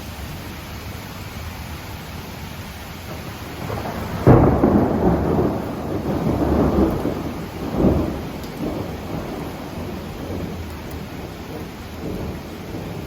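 Heavy downpour in a sudden thunderstorm, with a loud thunderclap cracking about four seconds in and rumbling for a few seconds, then a second peak of thunder near eight seconds.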